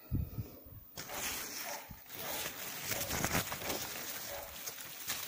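Raspberry leaves and canes rustling as a hand pushes into the bush, with a short handling bump at the start.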